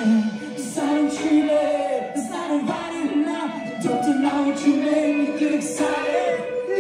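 Live indie rock band: a male lead singer singing over electric guitars and drum cymbals, heard through a phone recording from the audience.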